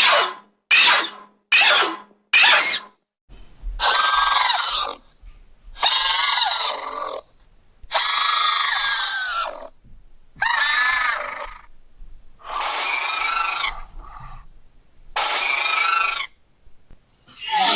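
Custom creature sound effects for Dren: four short, sharp shrieks, then about six longer warbling screeches, each a second or two long, with short pauses between.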